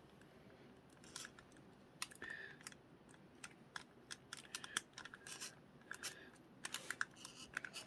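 Faint, irregular small clicks and scrapes of a spudger prying at the plastic head trim of an Anki Cozmo robot, growing denser near the end.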